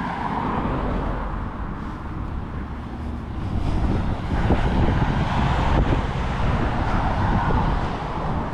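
Road traffic: cars passing on the road alongside, a steady noise of tyres and engines that swells louder in the second half as vehicles go by.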